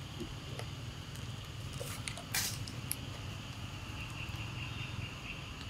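Forest ambience: a steady low rumble with a faint insect buzz above it, and scattered faint clicks. A short rustle comes about two and a half seconds in.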